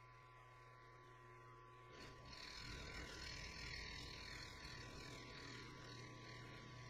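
Faint sound of a benchtop milling machine, its spindle motor humming steadily; about two seconds in a louder, rougher hiss joins as the 12 mm end mill in its R-8 collet cuts into the workpiece.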